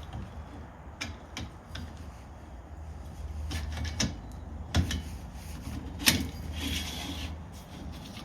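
Bike-rack parts being handled and fitted together by hand: scattered clicks and knocks, two louder knocks about five and six seconds in, and a brief scrape just after the second.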